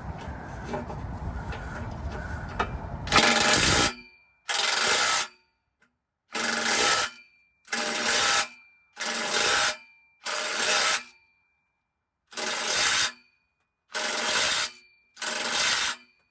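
A power tool run in nine short bursts, each under a second with a pause between, working on a rusted exhaust clamp until it gives way; every burst mixes a harsh, noisy sound with a steady whine. Before the first burst there is a few seconds of handling clicks and background noise.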